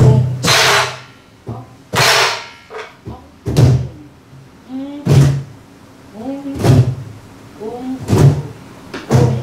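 Korean buk (pansori barrel drum) played in the slow jinyangjo rhythm: a stroke about every one and a half seconds. The strokes alternate between sharp stick cracks and deep thumps on the drumhead.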